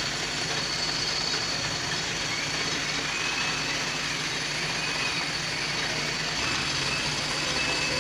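Lathe running steadily, a low motor hum under a continuous whirring noise, with a thin high whine coming in about three-quarters of the way through.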